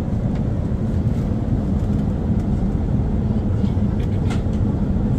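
Steady low rumble of cabin noise inside an Airbus A380 airliner in flight, on its descent.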